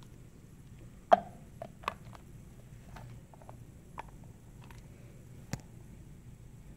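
Scattered light clicks and knocks of a hard plastic anatomical heart model being handled and turned over on a tabletop, the sharpest about a second in, with smaller taps around two, four and five and a half seconds.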